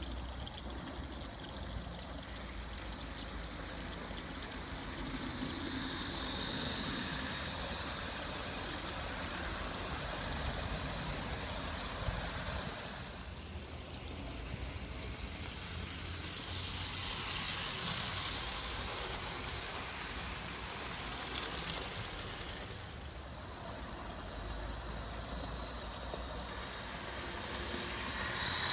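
Model train running on a garden railway, a steady rolling rumble and hiss of its wheels on the rails and its motor hum. It swells to its loudest a little past halfway through as the train passes close by.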